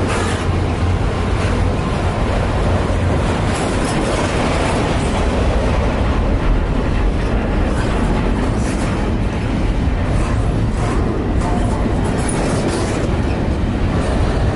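Double-stack container well cars of a freight train rolling past close by: a steady rumble of steel wheels on rail, with scattered clicks and clanks.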